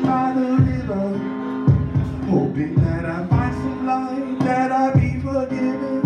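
Live vocal music: a man singing into a handheld microphone over backing music with a held low note and a beat of low thumps.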